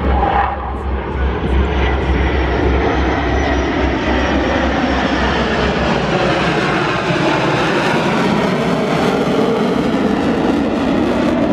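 Airplane engine noise from an aircraft flying past: loud and steady throughout, with a deep rumble underneath that drops away about six seconds in.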